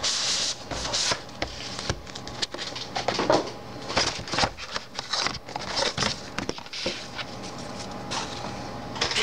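A keycap set's box and plastic packaging being opened and handled: irregular rustling with scattered clicks and taps.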